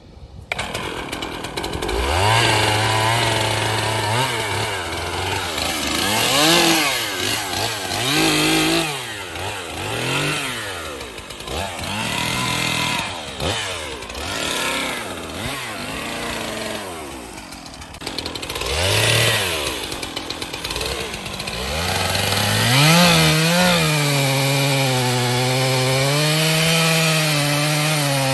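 Two-stroke chainsaw cutting into an ironbark trunk, its engine note starting about two seconds in, then rising and dipping over and over as the bar bites into the dense wood, and held at a steadier high pitch near the end.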